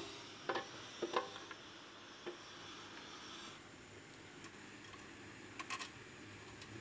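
A few light metal clinks and taps of a hand tool against the alternator's mounting hardware as it is bolted onto the engine: isolated sharp clicks, several in the first two seconds and a close pair near the end.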